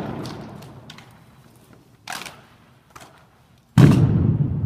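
Sharp knocks echoing in a large hall: one a little after two seconds and a faint click about a second later. A sudden loud rush of noise starts near the end and carries on.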